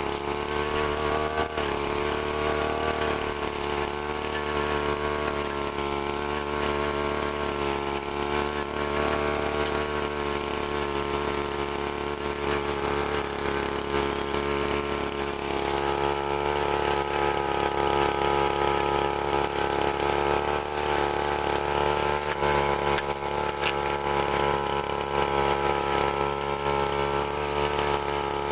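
STIHL FR 3001 brushcutter's engine running steadily, its pitch stepping up slightly about halfway through.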